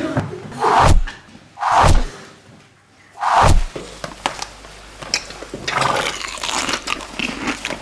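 Three heavy thumps, about one, two and three and a half seconds in, followed by quieter rustling and small clicks of book pages being handled.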